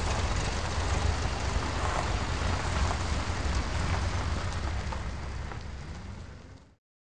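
Van engine sound effect: a steady low rumble under an even hiss. It fades over the last second and cuts off abruptly near the end.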